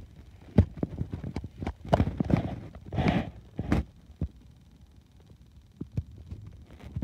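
Handling noise from a handheld camera: irregular soft knocks and thumps, with a short rustle about three seconds in. The knocks thin out after about four seconds.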